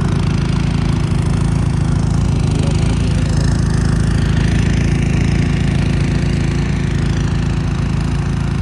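Snowblower engine running steadily with an even, unbroken mechanical drone, clearing snow.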